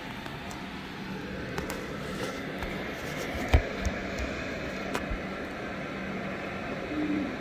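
Empty Samsung front-loading washing machine partway through a cold quick-wash cycle, its drum at rest: a steady low hum with a rushing noise. A few knocks come on top, the loudest a low thump about three and a half seconds in.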